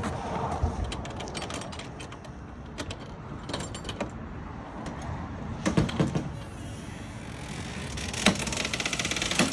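Rear ramp door of a 2022 Torque T26 toy hauler being unlatched and lowered: scattered metallic clicks and knocks from the latches, a louder clatter about six seconds in, and a quick run of rattling clicks near the end as the ramp door swings down.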